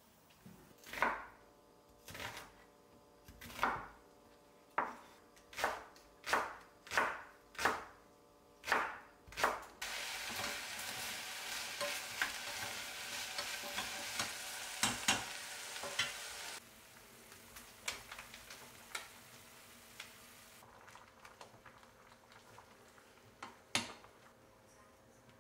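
A dozen or so knife strokes chopping vegetables on a cutting board, then onion and green onion sizzling as they are stir-fried with a spoon in a stainless saucepan, from about ten seconds in for some six seconds. After a quieter stretch, the stew simmers with a faint bubbling hiss and a single click near the end.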